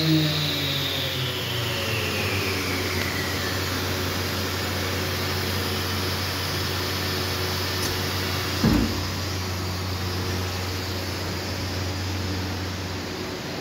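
Edgebander motors winding down, a whine falling steadily in pitch over the first few seconds, leaving a steady low machine hum. A single thump comes about nine seconds in.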